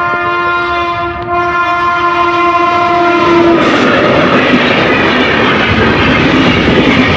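Passenger train sounding a long, steady horn blast for about three and a half seconds, then the loud rushing clatter of its wheels and coaches going past close by.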